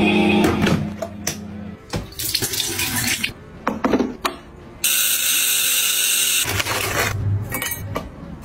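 A small portable washing machine's motor hums while its tub churns and splashes water. This is followed by a run of water and handling sounds with several clicks, including a steady hiss lasting about a second and a half.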